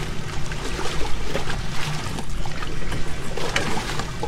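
Yamaha Superjet stand-up jet ski's two-stroke engine idling steadily in the water, with water splashing around the hull.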